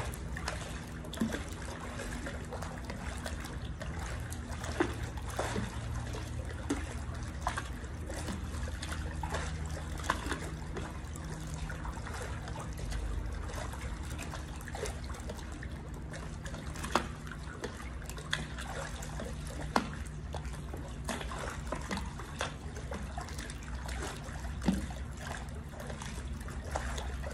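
Pool water splashing and sloshing as a person exercises in it, moving hand weights through the water, with a sharper splash every few seconds.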